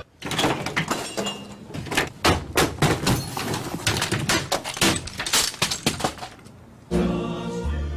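A rapid run of crashes, bangs and clatter as office equipment is smashed and knocked over: a desktop computer shoved off a desk and desk items thrown to the floor, with the sound of things breaking. After a brief lull, a music jingle comes back in near the end.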